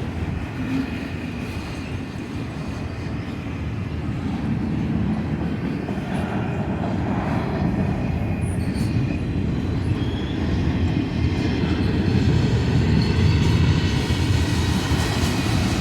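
Freight train cars rolling through a grade crossing, the wheels rumbling steadily on the rails. The sound grows louder through the second half as the train picks up speed.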